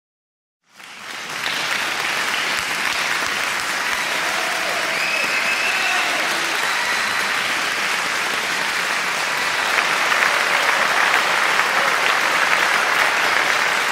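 A crowd applauding steadily, starting just under a second in, with a few faint cheers over it around the middle.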